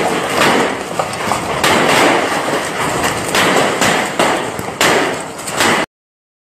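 Torrential wind-driven rain in a storm, loud and coming in gusts, with a dense drumming of hard drops; it cuts off suddenly near the end.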